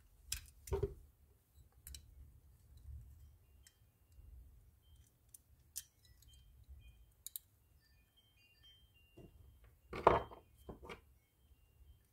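Small metal reel parts and screws clicking and tapping as they are handled and a screw is started by hand into a fishing reel's frame, with a louder knock about ten seconds in.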